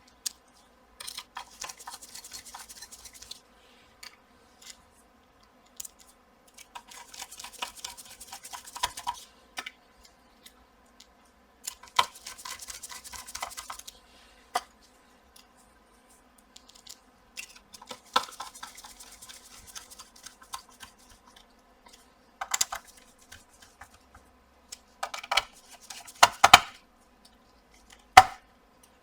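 Small screws being driven back into a graphics card with a precision screwdriver: four runs of about two seconds each of fine rapid clicking and scraping as the screws turn. Several sharper clicks follow in the last third.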